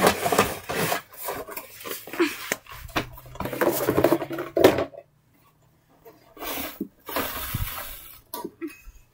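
Handling noise as toys and boxes are moved about on a carpeted floor: irregular rustling and knocking, stopping briefly about five seconds in and then picking up again.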